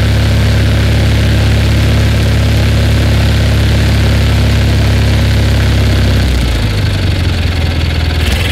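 Simplicity Sunstar garden tractor's 20 hp Kohler Magnum twin-cylinder engine running at a steady speed, then dropping in speed about six seconds in and running unevenly.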